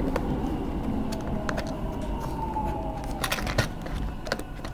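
Subway train running, heard from inside the car: a steady low rumble with a faint whine that slides slightly down in pitch midway. A few light clicks of a plastic compartment box being handled come in the second half.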